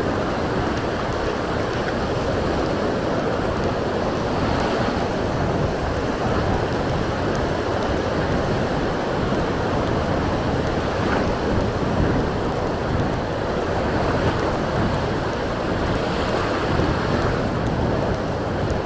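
Surf washing onto a beach in strong wind, with gusts buffeting the microphone: a steady, even noise with no separate events.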